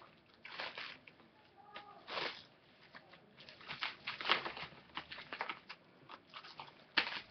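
Plastic cling wrap crinkling and crackling as it is pulled from the roll and stretched around a head, in irregular bursts that are loudest about two seconds in and again around four seconds in.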